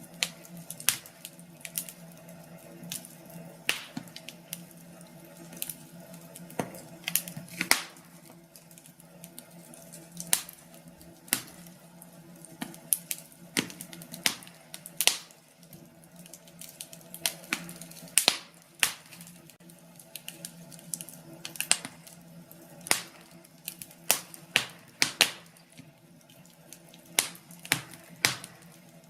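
Wood fire crackling in a fireplace: irregular sharp pops and snaps, a few each second and uneven in loudness, over a faint steady hum.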